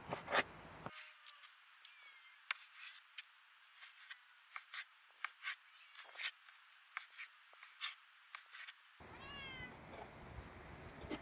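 A knife cutting lamb fat on a wooden chopping board, in irregular sharp taps. Near the end, a domestic cat gives one short, falling meow.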